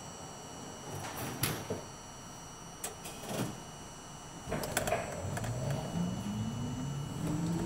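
R42 subway car standing in the station with a few sharp clunks, then pulling away: its traction motors start a whine that rises steadily in pitch as the train picks up speed.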